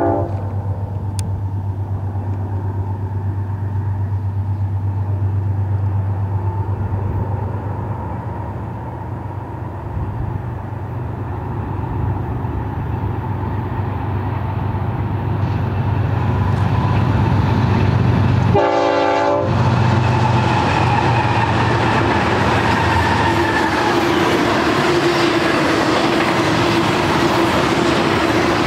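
Lead units of a BNSF intermodal train, GE ES44C4 diesel-electric locomotives, running steadily as they pass, with a short horn blast about two-thirds of the way in. Near the end the engine hum gives way to the steady rolling noise of the double-stack container cars going by.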